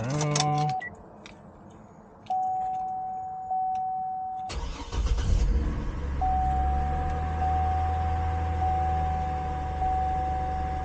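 A 2004 GMC Envoy/Trailblazer's engine is cranked by the starter about four and a half seconds in, catches, and settles into a steady low idle. A steady electronic dash chime sounds before the start and keeps sounding over the idle.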